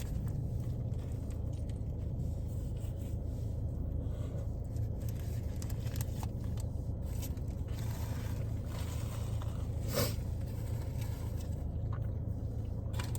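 Faint chewing and food-handling sounds over a steady low hum, with one sharp click about ten seconds in.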